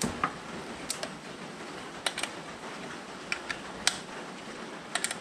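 Scattered sharp metal clicks and ticks as a chainsaw scrench works the bar nuts and side cover on a chainsaw, fitting and tensioning the guide bar.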